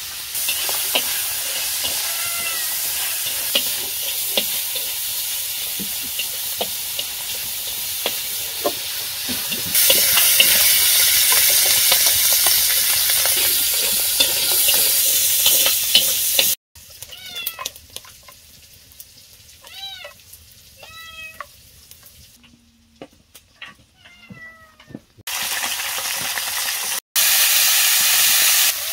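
Food sizzling and crackling as it fries in a hot pan, a steady hiss with scattered pops that grows louder partway through. After a sudden break, a cat meows about half a dozen times, short rising-and-falling cries, before the sizzling resumes near the end.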